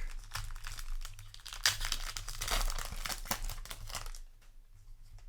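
Digimon Card Game booster pack wrapper being torn open and crinkled: a dense run of crackles, loudest about two to three seconds in, dying down after about four seconds.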